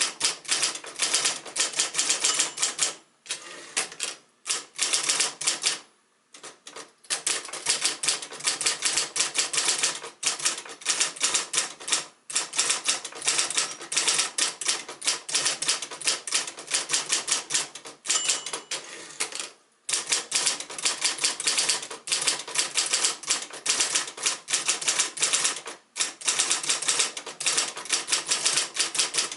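1971 Royal Saturn portable electric typewriter typing: a fast, dense run of keystroke clacks, broken by brief pauses several times.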